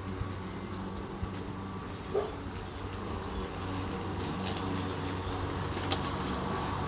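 Walk-behind lawn mower running with a steady hum, slowly getting louder as it is pushed closer.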